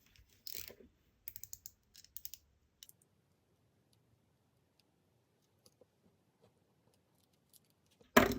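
Small hard clicks and taps of tools and plastic parts being handled, a cluster in the first few seconds, then a single louder knock near the end.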